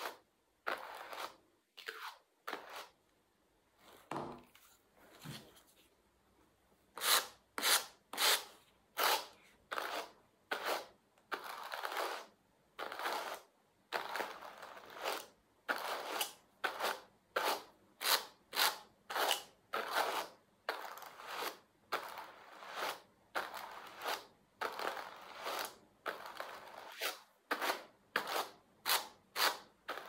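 A pair of Ashford hand carders brushing cotton, the wire teeth of the carding cloth rasping through the fibres in short strokes. A few sparse strokes come first, then from about seven seconds in a steady rhythm of about two strokes a second.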